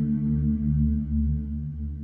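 Ambient music of sustained low drones and steady held tones, with a deep bass swell.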